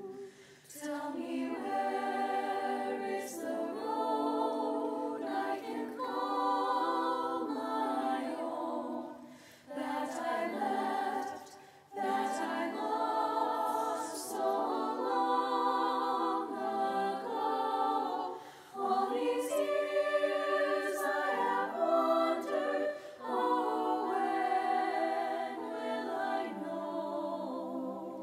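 Unaccompanied choir singing sustained chords in long phrases, with brief breaks between phrases.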